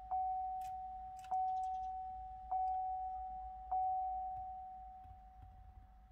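Car interior warning chime, a single-pitched ding repeating about every 1.2 seconds, four times. Each ding rings out and fades, and the last one dies away slowly.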